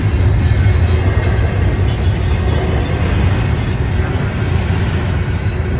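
Intermodal freight train's double-stacked container well cars rolling past, a loud, steady rumble of wheels on rail.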